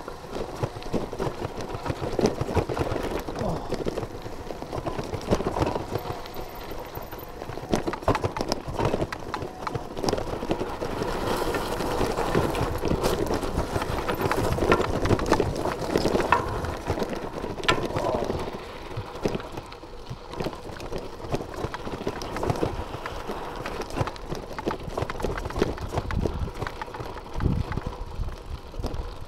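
Bicycle riding over a rough gravel track: tyres crunching on loose stones and the bike rattling with many irregular knocks, loudest in the middle and easing off in the last third.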